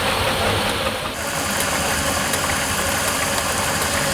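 A steam traction engine running steadily, with faint clicks; the sound changes abruptly about a second in.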